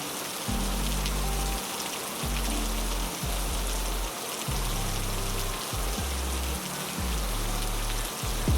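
Heavy, steady rain: a dense hiss with scattered sharper drop hits. Underneath it, low sustained notes shift every second or so, and a short low thump comes near the end.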